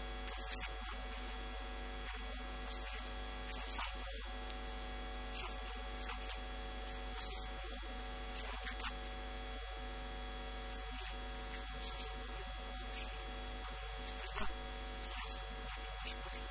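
Steady electrical mains hum with a thin high whine, no other sound of note.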